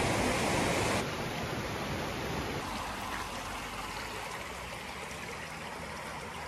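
Stream water rushing, a steady noise that steps down a little about a second in and then fades slightly.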